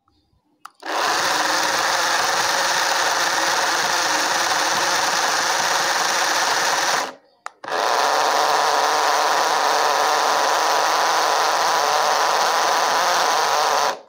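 Small DC gear motor of a homemade remote-control cardboard truck running steadily, spinning its wheel, with a brief stop about seven seconds in before it starts again.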